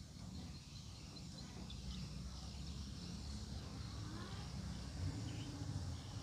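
Low, steady engine rumble with a faint hum that grows louder toward the end, with faint, scattered high chirps from birds above it.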